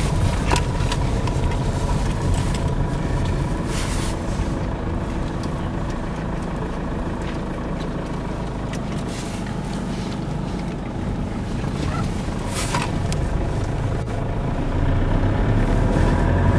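Car engine and road noise heard from inside the cabin, a steady low rumble with a couple of brief knocks. The noise grows louder near the end as the car picks up speed.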